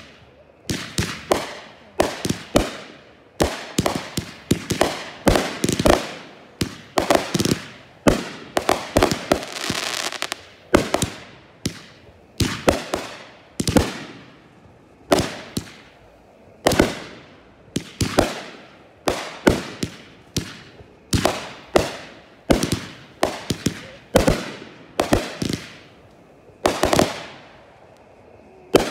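Aerial fireworks firing and bursting overhead in a rapid, unbroken string of sharp bangs, about one to two a second, each with a short echoing tail.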